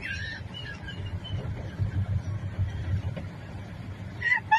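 Steady low rumble of a large truck's engine and tyres at highway speed, heard from inside the cab. A voice breaks in near the end.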